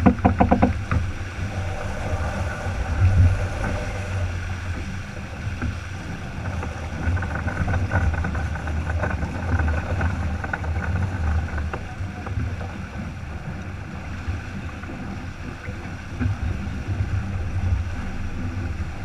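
Wind buffeting the camera microphone over water rushing along the hull of a sailboat moving fast while heeled, a steady low rumble with a hiss of spray.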